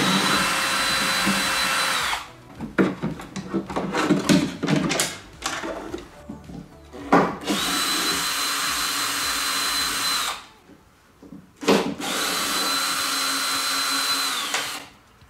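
Cordless drill-driver backing out the three Torx T30 screws that hold a tailgate lock mechanism: three steady runs of a couple of seconds each with a high whine, and clicks and knocks of handling in between.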